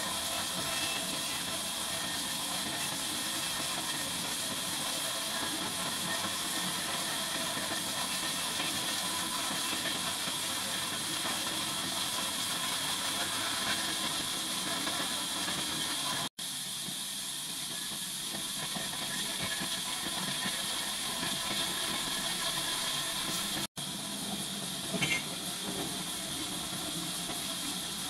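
Large band sawmill running: a steady hiss with a faint whine underneath from the band saw and its drive, briefly dropping out twice.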